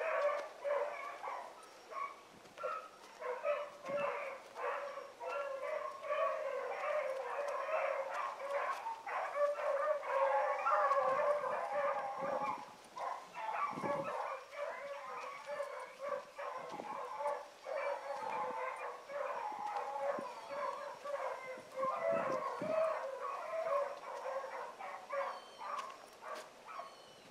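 A pack of rabbit hounds baying in full cry as they run a rabbit's track, many short overlapping cries from several dogs at once. The chorus swells about ten seconds in and grows thinner near the end.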